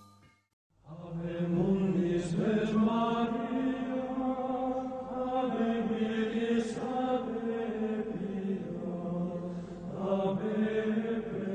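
Background music of low chanting voices holding long, slowly changing notes, coming in after a brief silence about a second in.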